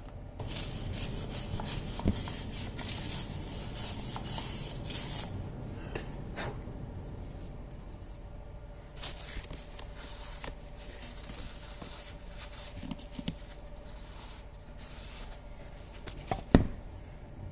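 Hand wire brush scrubbing the cast braking surface inside a Massey Ferguson 165's rear axle trumpet housing, a raspy scratching for the first five seconds or so, cleaning it back for the disc brakes. After that, scattered light clicks and knocks of handling, with one sharp knock near the end.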